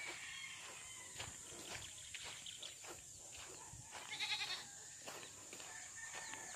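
Footsteps on dry ground strewn with straw and leaves as someone walks. About four seconds in comes a short quavering animal call, the loudest sound.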